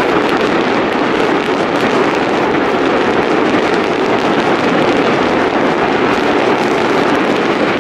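Fireworks display in a dense barrage: many bursts and crackles overlapping into one continuous, steady din.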